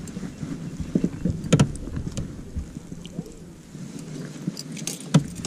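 Metal clinks and knocks as a wire-mesh fish basket and its chain are handled against the side of an aluminium boat, the loudest about one and a half seconds in and another near the end, over low background noise.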